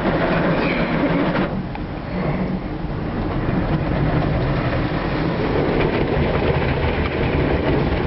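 Automatic car wash running, heard from inside the car: a steady, loud wash of spray and machinery noise over a low hum, thinning briefly about a second and a half in.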